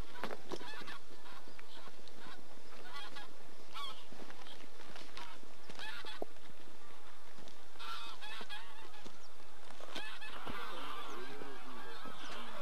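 A flock of geese honking in flight, many overlapping calls over and over, growing denser near the end.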